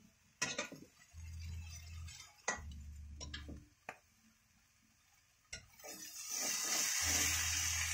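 Metal spoon clinking and scraping against a frying pan as vegetable fern shoots are stirred over a wood fire, a few sharp knocks spread through the first half. From about six seconds in, a steady sizzling hiss builds up from the frying greens.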